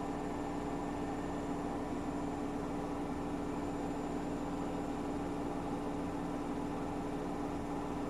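Household appliance running with a steady, even hum and a constant low tone, no change in pace.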